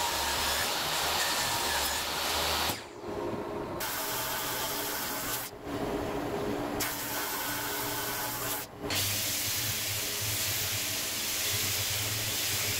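Woodworking power tools working a teak end-grain cutting board in turn, each a steady machine noise that changes abruptly from one to the next: a table saw crosscutting the board's ends, a drum sander, then, from about nine seconds in, a Makita random orbit sander pre-sanding the face.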